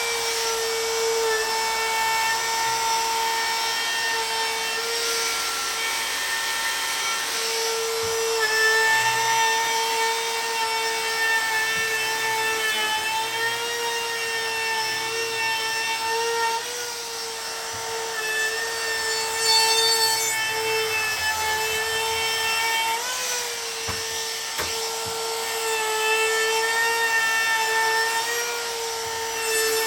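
Electric power sander with 80-grit paper starting up and running steadily on a cherry wood board, a constant motor whine with slight dips in pitch as it bears into the wood.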